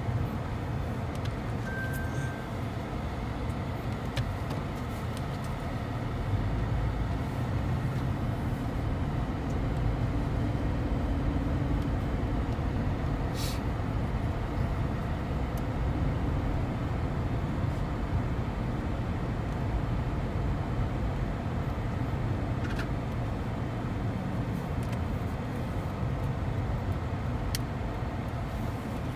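Steady low rumble of a 2013 Lexus hybrid heard from inside its cabin, with a few faint clicks.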